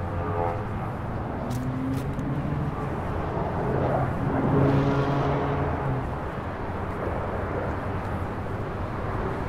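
Jet airliner flying low overhead, its engine drone swelling loudest about halfway through, over a steady low rumble.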